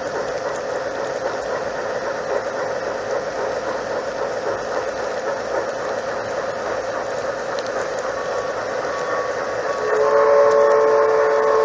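Garden-scale model train rolling along the rails with a steady running noise. About ten seconds in, a two-note model locomotive whistle starts and holds.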